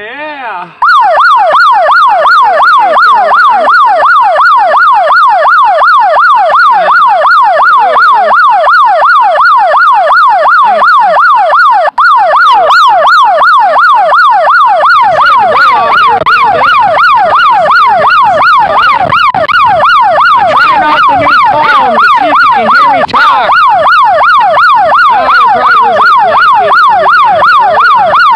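Electronic siren wailing continuously and very loudly, its pitch sweeping rapidly up and down several times a second. It starts just under a second in and breaks off for an instant near the middle.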